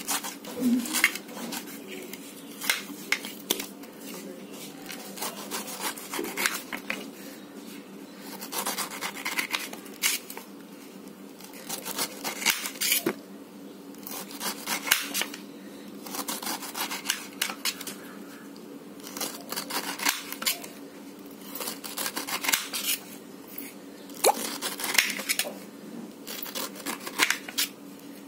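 A kitchen knife cutting the tough skin off a whole pineapple: short, irregular crunching and rasping strokes as the blade slices down through the rind.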